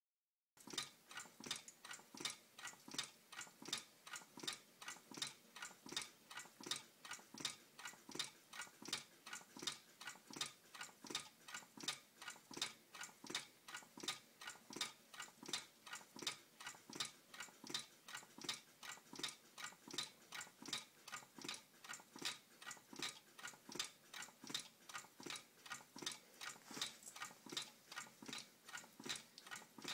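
Homemade soda-can Stirling engine with a CD flywheel and bent-wire crank running steadily, ticking at an even rate of about three ticks a second.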